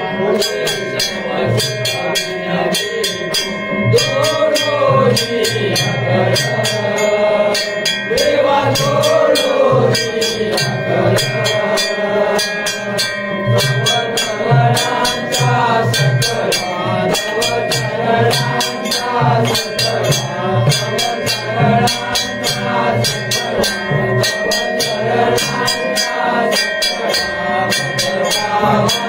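Devotional group singing to Lord Ganesh, several voices together, over a drum and percussion keeping a steady beat.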